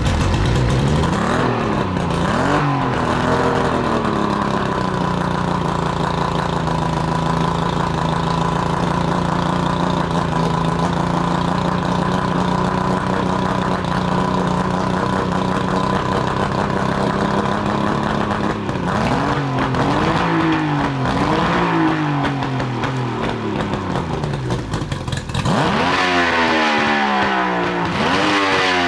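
Mercury 50 hp outboard motor running on a flushing hose, out of the water. It is blipped up and down a few times near the start, idles steadily through the middle, is blipped again a few times past the middle, and near the end dips briefly before revving up and slowly winding back down.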